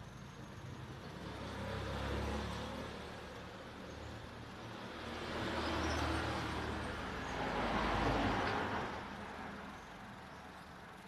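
Road traffic passing: engine rumble and tyre noise swelling and fading three times, loudest near the end.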